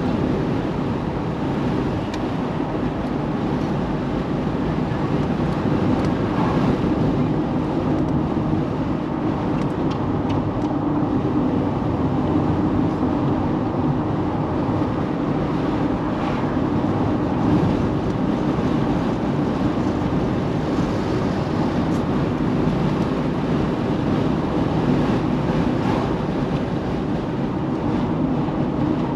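Car driving along a road, heard from inside the cabin: steady engine and tyre rumble.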